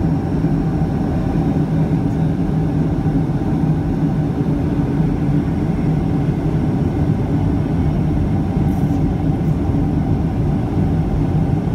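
Steady cabin drone of a Boeing 757-200 in flight, engine hum and airflow noise heard from a window seat, with a constant low hum under an even rush.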